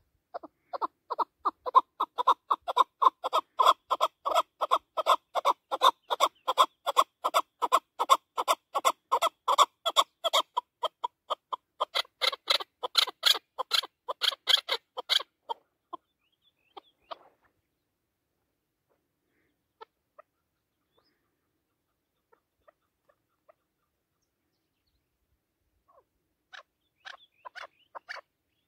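Chukar partridge calling: a long run of short clucking notes, about four a second, for some fifteen seconds, then a few faint scattered notes and a short burst of calls near the end.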